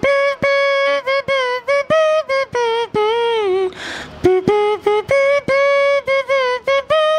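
A song melody played with the nose, hand cupped over the nose and mouth. It is one clear pitched tone in short separate notes, some held and some sliding between pitches. About four seconds in there is a quick breath drawn in.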